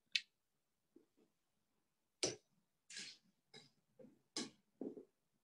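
A metal palette knife being handled against the palette and painting gear: a string of light clicks and short scrapes, the sharpest click about two seconds in and a longer scrape about three seconds in.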